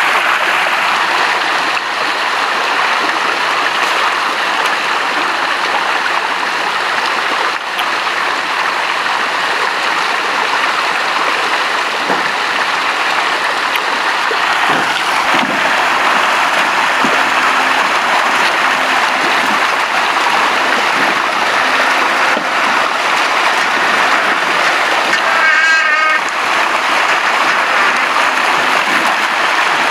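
Dense, steady splashing of crowded milkfish thrashing in a seine net in shallow pond water. A brief warbling tone sounds once about 26 seconds in.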